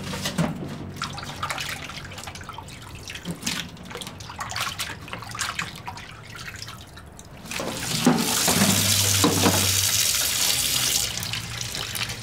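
Small splashes and clicks of hands working fish pieces in a bowl of water in a stainless-steel sink, then, about 7.5 seconds in, a tap turned on and running steadily onto catfish pieces in a plastic basket, rinsing off the salt and slime.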